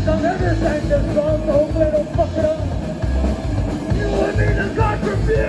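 Live psychobilly band playing loud rock and roll: a pulsing drum and bass beat under a wavering melody line.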